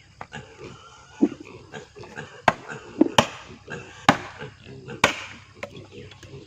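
A run of sharp chopping strikes at an uneven pace, with four loud blows in the middle of the stretch and lighter knocks between them.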